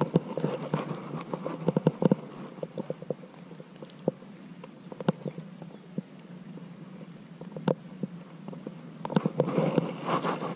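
Gloved hands handling fishing tackle close to the microphone: scattered clicks and rustles, busiest in the first two seconds and again near the end, with a few single ticks between and a faint steady hum underneath.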